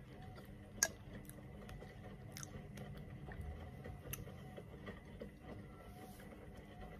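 A person eating overnight oats with yogurt and fruit from a spoon, with quiet chewing and mouth sounds. A sharp click about a second in, and a few fainter clicks later.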